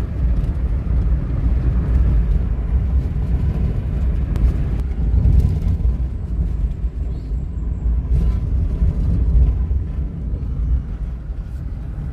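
Vehicle on the move: steady low rumble of engine and road noise.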